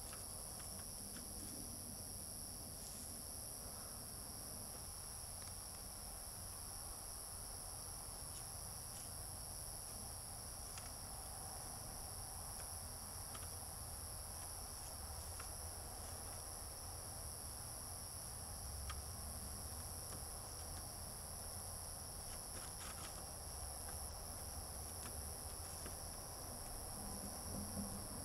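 Crickets trilling steadily in one unbroken high-pitched chirring, with a few faint clicks scattered through it.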